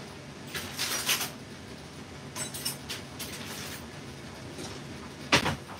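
Off-camera kitchen handling noises: rustling and scraping in two short spells, then one sharp knock near the end.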